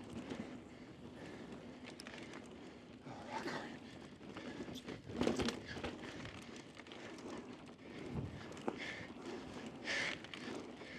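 Mountain bike rolling fast down a dusty dirt trail: tyres crunching over loose dirt and the bike rattling, with a few sharp knocks, the loudest about five seconds in.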